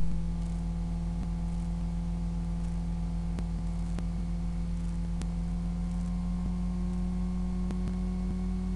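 Steady low electrical hum with an even background hiss, with a few faint clicks.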